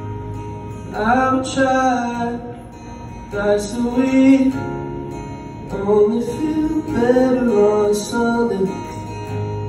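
A man singing live to his own acoustic guitar, in several slow phrases that begin about a second in.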